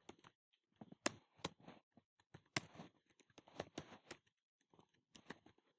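Typing on a computer keyboard: faint, irregular keystroke clicks in quick runs with short pauses between them.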